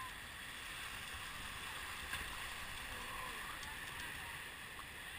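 River rapids rushing steadily around a kayak's bow, an even hiss of fast-moving whitewater, with one sharp tick about two seconds in.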